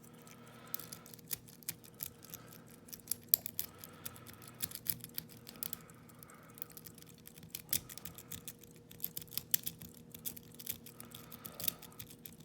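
A lock pick being raked in the keyway of a Yale railroad switch lock: a Sparrows double-peak rake is worked against the pins under tension, giving an irregular run of light clicks and scrapes.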